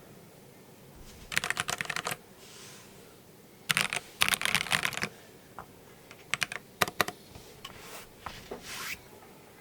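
Stock ZZANEST Elements 75XT mechanical keyboard with an aluminium plate, Akko CS Crystal linear switches and PBT keycaps being typed on. Two quick runs of keystrokes come about a second in and around four seconds in, followed by scattered single key presses.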